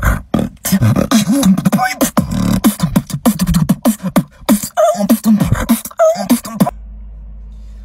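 Vocal beatboxing: a fast run of mouth-made kick, snare and hi-hat clicks over a hummed, gliding bass line. About two-thirds of the way in the beat stops and only a steady low hum remains.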